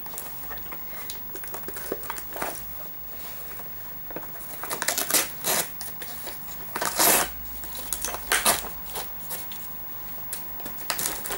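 Cardboard backing being ripped and peeled off a plastic blister pack of small toys: irregular tearing and crinkling of card and plastic, with the loudest rips about five, seven and eight and a half seconds in.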